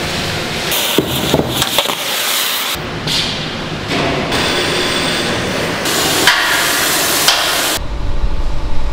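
Metalworking shop noises in quick succession: knocks and clanks with stretches of rushing noise, each changing abruptly every second or two, and a low rumble starting near the end.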